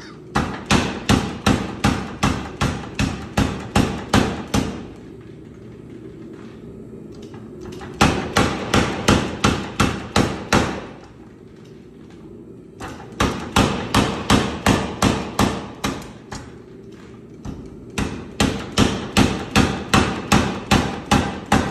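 Homemade 100 lb leaf spring power hammer pounding a red-hot steel bar in four runs of rapid blows, about four a second, with a steady low hum between runs.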